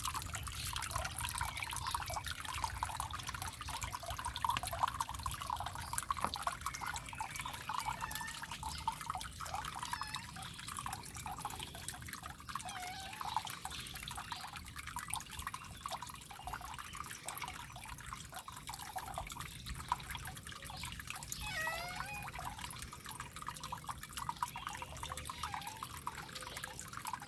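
Small decorative water fountain trickling and dripping steadily, the falling water making many small bubbling plinks.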